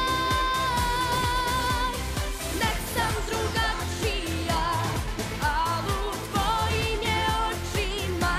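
Pop song with a woman singing without words: a long held note with vibrato, then quick ornamented runs, over a steady beat.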